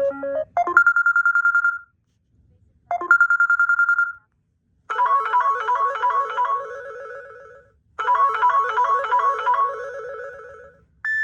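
Samsung Galaxy Express 3 smartphone playing ringtone previews through its speaker. First comes a trilling electronic ring in two short bursts, then a melodic ringtone of quick repeated notes that plays twice. A short beep sounds at the very end.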